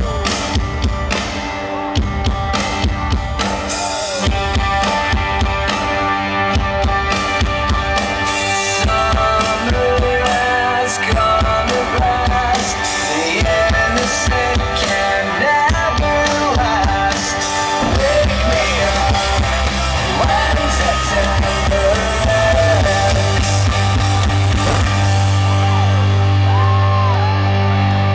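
Loud rock-style music with a drum kit and singing. In the last few seconds a steady low bass note holds under it.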